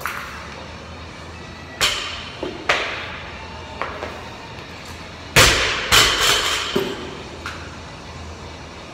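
Loaded barbell with black weight plates dropped from overhead onto the gym floor about halfway through: a loud bang followed by a few smaller bounces and clanks. Earlier, two sharper clanks come from the bar and plates as it is lifted.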